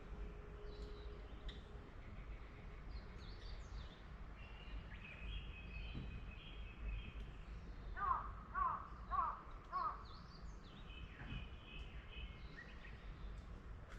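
Forest birds chirping, with short high chirps and brief trills throughout. About eight seconds in, a crow caws four times in quick succession, the loudest sound, over a low steady background rumble.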